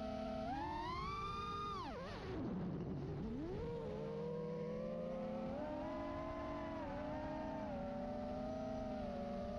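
FPV racing quadcopter's motors and propellers whining under changing throttle. The pitch holds steady, climbs about half a second in, falls sharply to a low hum around two to three seconds in as the throttle is cut, then climbs back and wavers up and down.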